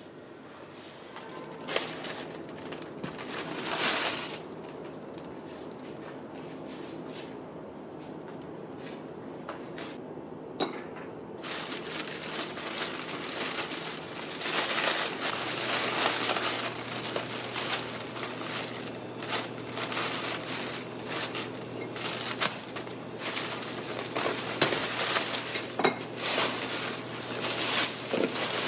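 Thin plastic carrier bag rustling and crinkling as hands untie its knotted handles and fold it open around a cling-wrapped takeout container. A couple of knocks come in the first few seconds, then the crinkling runs dense and continuous from about eleven seconds in.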